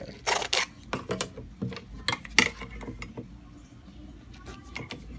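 NATO watch strap and its hardware being handled by hand: a run of sharp clicks and rustles in the first two and a half seconds, then fainter handling.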